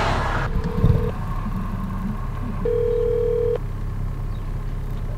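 Phone ringback tone playing through an iPhone on speakerphone as an outgoing call rings: two steady beeps, the second about a second long, over a low steady rumble.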